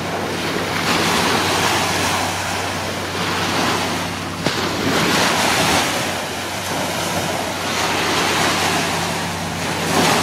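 Sea surf washing ashore in surges that swell and ease every couple of seconds, with wind rumbling on the microphone and a sharp click about four and a half seconds in.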